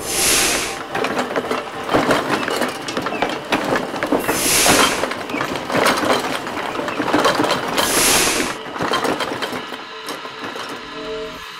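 Three hissing bursts of spray from a spray can, over a busy run of clattering and banging from a scuffle around a janitor's cart and mop bucket.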